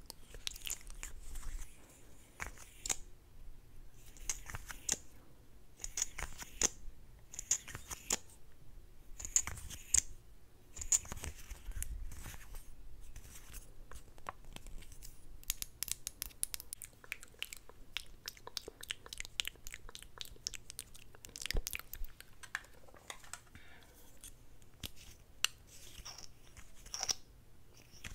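Close-miked wet mouth sounds: lip smacks and clicks from glossed lips. They come in short clusters every second or two, turn into a quicker run of clicks in the middle, then thin out again.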